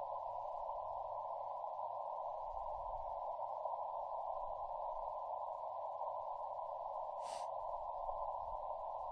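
Yaesu FT-891 receiver hiss: steady band noise squeezed into a narrow mid-pitched band, as through a CW filter, with no Morse signal keyed. One brief click about seven seconds in.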